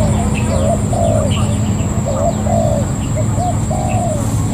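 Spotted doves cooing: a steady run of short, low coo notes, one after another, with faint higher chirps of small birds above them.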